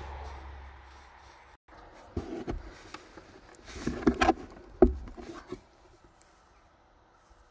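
Plastic fuse box cover under a VW Golf Mk7 dashboard being unclipped and taken off by hand: a run of clicks and knocks from plastic trim, the sharpest click about five seconds in.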